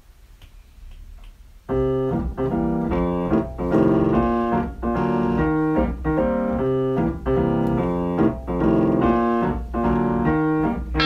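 Jazz piano accompaniment playing repeated chords with a bass line underneath, coming in about two seconds in.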